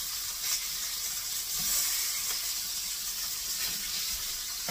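Burger patties sizzling steadily in a frying pan, a continuous even hiss.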